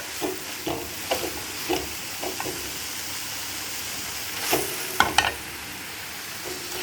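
Grated beetroot and onion frying in coconut oil in a pan, sizzling steadily, while a spatula stirs and knocks against the pan: a run of short strokes in the first couple of seconds, then a few sharper knocks about five seconds in.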